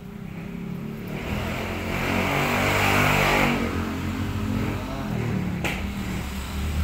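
Motor vehicle engine running close by, swelling to its loudest about three seconds in and then easing off, with one sharp click near the end.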